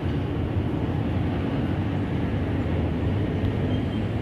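Steady low outdoor rumble: wind buffeting the microphone over a distant city hum.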